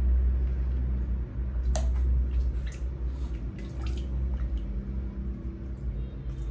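Water lapping and dripping in a plastic basin as a baby monkey swims through it, with scattered small splashes, one sharper about two seconds in. A steady low rumble runs underneath.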